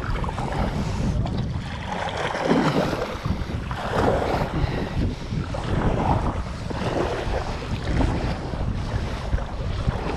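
Water splashing from kayak paddle strokes, a splash about every second and a half, with wind buffeting the microphone.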